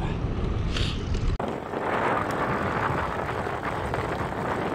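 Wind buffeting the microphone of a camera on a moving bicycle: a low rumble that cuts off suddenly about a second and a half in, leaving a steady rushing noise of wind and riding.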